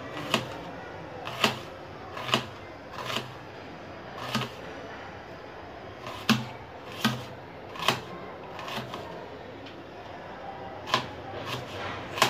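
Kitchen knife slicing onion halves into thin strips on a cutting board: a sharp tap each time the blade goes through and meets the board. There are about a dozen taps, roughly one a second, with a few short pauses.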